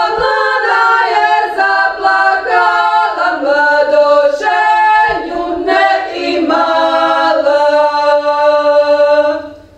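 Four women's voices singing a Podravina folk song a cappella in close harmony, ending on a long held chord that fades out near the end.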